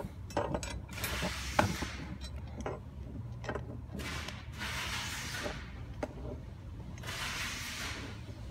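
Handling noise of chair parts being fitted together: sharp knocks and clicks of the seat against its metal bracket, with two longer rubbing, sliding sounds, one about four seconds in and one about seven seconds in.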